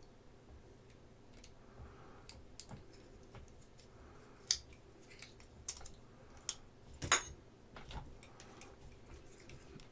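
Scattered light clicks and taps of small plastic and metal modelling tools and parts being handled and set down on a cutting mat, with two sharper clacks, one near the middle and one about two-thirds through.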